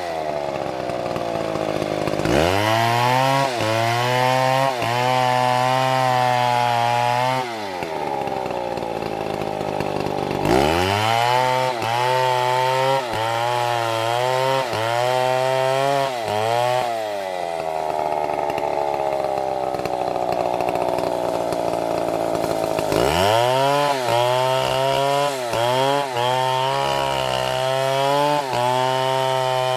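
Chainsaw engine revving up to high speed three times and running there with a wavering pitch, sliding back down toward idle between the runs.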